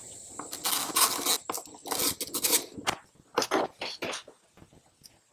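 Irregular metallic clicks and scrapes of a small tool and parts handled on a steel bench top, as the head of a 3/8-inch flex-head ratchet is opened up for a look at its pawl and switch.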